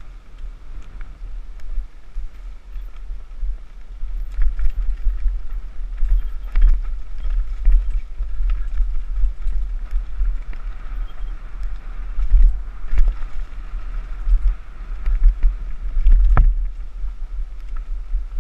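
Wind buffeting an action camera's microphone as a mountain bike descends a rough dirt trail, with the bike clattering and knocking over the ground. A single sharp knock stands out near the end.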